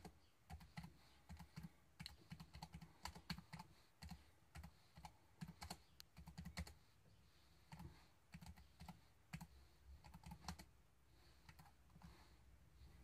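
Typing on the keyboard dock of a Venturer 2-in-1 Windows tablet: quiet keystroke clicks in quick runs with short pauses, a really positive sound from the keys.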